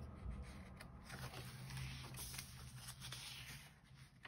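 Faint rustling of paper as a page of a spiral-bound ledger is turned over by hand, over a low steady hum.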